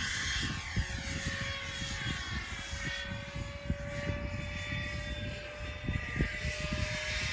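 70 mm electric ducted fan of an Art Tech MiG-15 RC jet whining at a steady pitch in flight, over a hiss that slowly sweeps up and down as the model moves overhead. Low gusts of wind rumble on the microphone.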